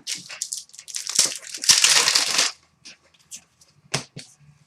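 Crinkling and rustling of a trading card pack's wrapper and the cards as they are handled, loudest about two seconds in, followed by a few light clicks.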